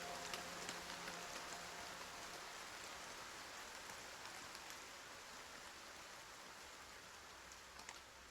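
Rain falling, an even hiss with scattered individual drops, slowly fading quieter. A faint held music tone dies away in the first couple of seconds.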